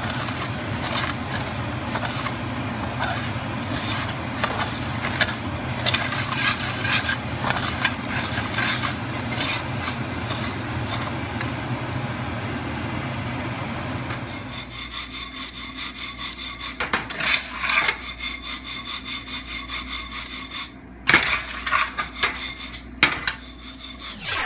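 Metal spatula scraping and stirring dry, uncooked sticky rice grains in a pan as they dry-roast for toasted rice powder. It is a continuous gritty rasping full of small clicks of the grains. A steady low hum underneath stops a little over halfway through.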